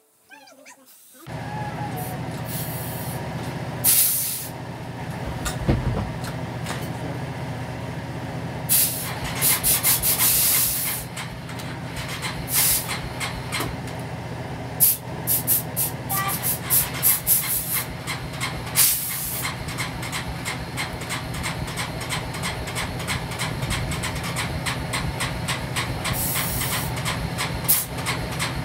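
Yamaha Bear Tracker 250 quad's single-cylinder engine running steadily after a carburettor rebuild, with sharp cracks now and then.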